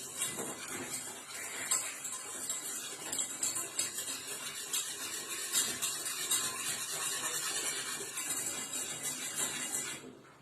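Cooking utensil stirring and scraping round a pan of mixture heating on a gas stove, a fast continuous run of scrapes and clinks that stops suddenly near the end.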